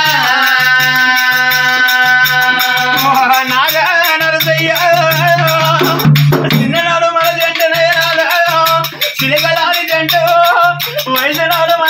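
Telangana Oggu katha folk music: long, held, wavering sung notes of a lament over a steady drumbeat about twice a second and a continuous rattling jingle of hand percussion.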